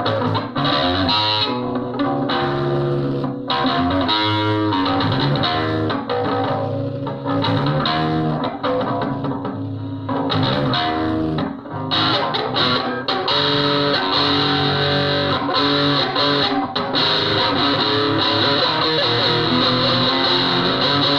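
Stratocaster-style electric guitar played through distortion, a continuous run of strummed and picked notes with a few brief dips in loudness.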